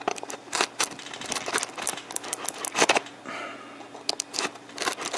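Cardboard and plastic packaging handled while a boxed computer part is unpacked: irregular clicks, taps and rustles.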